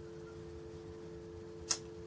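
A 17 mm spanner clicking once against metal near the end, over a steady two-tone hum.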